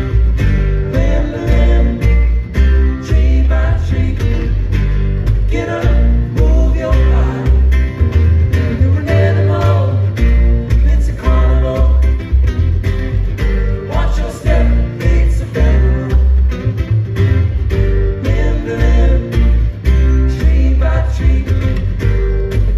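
Live acoustic band music: upright double bass playing a steady bass line under two acoustic guitars.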